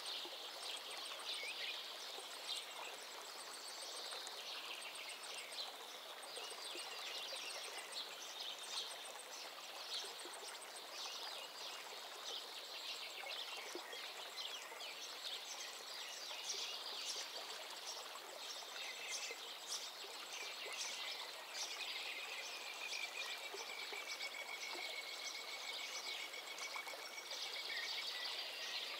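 Small birds chirping and trilling, many calls overlapping, over a steady rush of flowing water. A longer, held whistled note comes in near the end.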